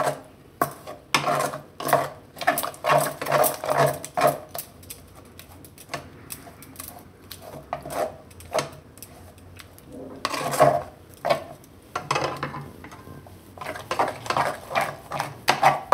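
A metal stirring utensil scraping and clinking against a kadai as it mashes lumps out of a thick cashew-milk paste. It comes in runs of quick strokes and is quieter for a few seconds in the middle.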